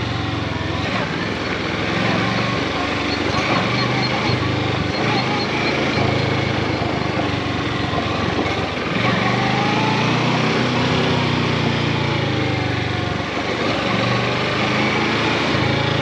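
Kawasaki Versys 650's parallel-twin engine running at low revs as the motorcycle rides a gravel road, the revs rising and falling with the throttle, over a steady hiss of tyre and wind noise.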